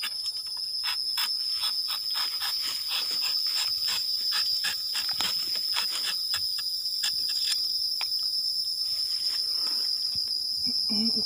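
Rubber-tapping knife shaving bark along the tapping cut of a rubber tree in many short scraping strokes, about three a second, which stop about eight seconds in. A steady high-pitched insect drone runs behind.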